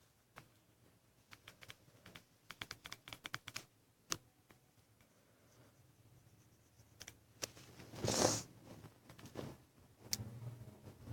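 Light clicks and taps, a quick run of them in the first few seconds and a few single ones after, then a short rustling noise about eight seconds in.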